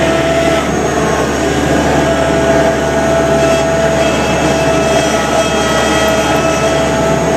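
2005 Thomas 153 skid steer's engine running steadily at working speed, with a steady whine over it, heard from inside the machine's enclosed cab.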